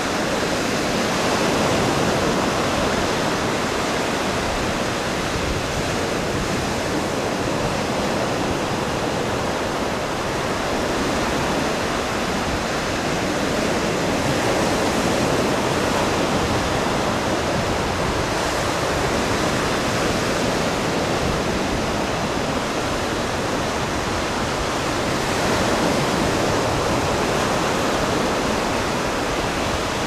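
Steady rushing wash of ocean surf on the beach, swelling slightly a few times.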